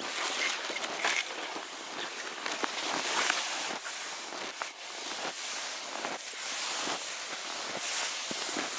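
Skis sliding and crunching through fresh snow with each stride, a steady hiss broken by short crunches.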